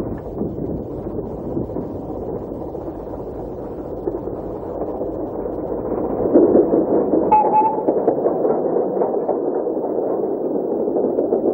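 Lord Nelson class four-cylinder 4-6-0 steam locomotive working a train under load, a fast run of exhaust beats over the rumble of the coaches, growing louder as it passes close about six seconds in. A short high tone sounds about seven seconds in.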